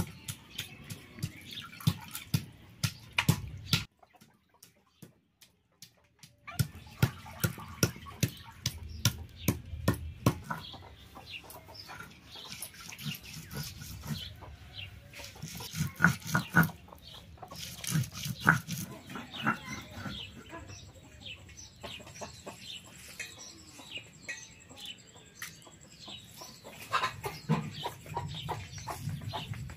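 Repeated knocks and scrapes of a stone roller crushing green herbs on a flat grinding stone, with hens clucking in the background. Near the start there are a couple of seconds of near silence.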